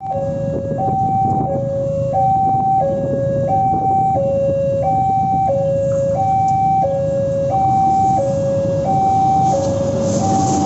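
Railway level-crossing warning alarm sounding a steady alternating two-tone, high then low, each tone about half a second, over the low rumble of waiting motorbikes and cars. About ten seconds in, the noise of an arriving CC 205 diesel locomotive rises underneath.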